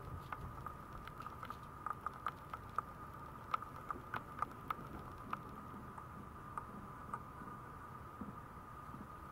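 Maltese puppy gnawing on a plastic playpen panel foot: irregular small clicks and taps of teeth on hard plastic, several a second, thickest through the middle.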